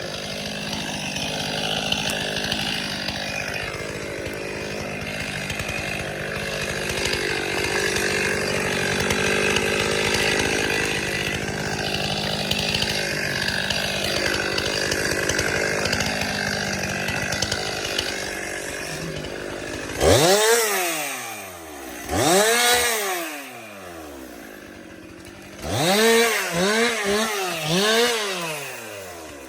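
Two-stroke chainsaw cutting through a tree at steady throttle. About two-thirds of the way through it is revved off the cut: two separate rises and falls in pitch, then a quick run of about four revs near the end.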